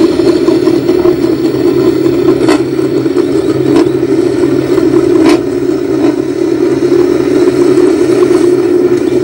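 MotoGP race bikes' engines running together at a steady, high idle, a loud even drone with no revving. A couple of sharp cracks cut through it, at about two and a half and five seconds in.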